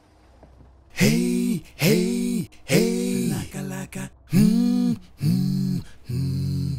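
An unaccompanied singing voice holding a run of about seven short sustained notes, each arching up and then down in pitch, starting about a second in after a near-quiet opening.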